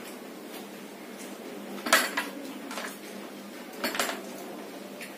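Spoons clinking against plates and small bowls while filling panipuri with pani. Two sharp clinks, about two and four seconds in, with a few lighter taps between.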